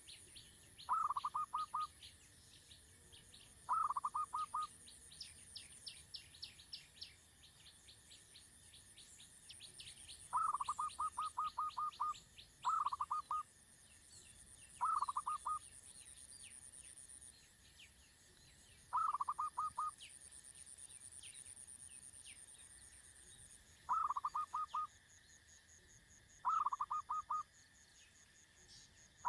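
Birds calling: about every two to three seconds a short burst of rapid chattering notes, over thinner high chirps and a high, steady buzz that comes and goes.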